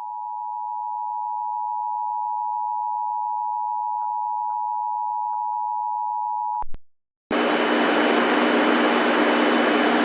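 Emergency Alert System two-tone attention signal (853 and 960 Hz together), a steady loud tone that cuts off suddenly with a click about seven seconds in. After a brief gap, a steady radio hiss with a faint hum comes on, the sound of a weather-radio broadcast about to start.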